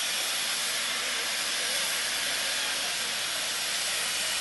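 Standing steam locomotive letting off steam, a steady, even hiss.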